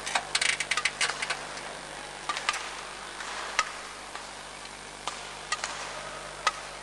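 Sharp clicks and knocks in a large sports hall: a quick dense cluster in the first second and a half, then single ones every second or so, over a steady low hum of hall ambience.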